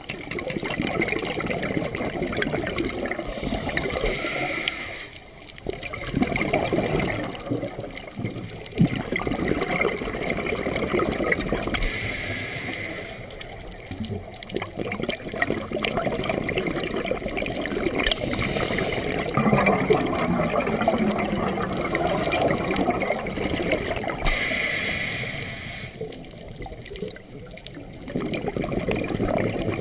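Scuba breathing through a regulator underwater: a hiss on each inhale, then a longer stretch of bubbling as the exhaled air escapes. It repeats in an even rhythm, four breaths in all.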